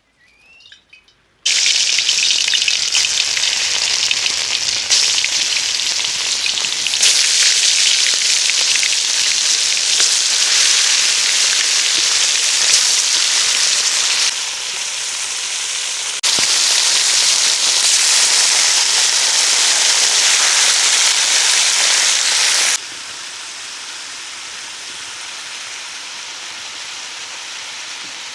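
Food frying and sizzling loudly in a hot cooking pot, an even hiss that starts suddenly about a second and a half in and steps up and down in loudness several times, going quieter near the end.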